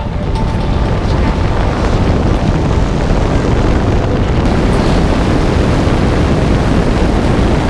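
Heavy wind noise on a camera microphone mounted outside a moving Subaru Crosstrek: a steady, loud rush with no distinct engine note.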